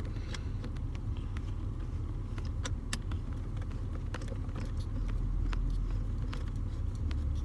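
Light clicks and taps of a metal shift knob being handled on the gear shifter, over a steady low rumble.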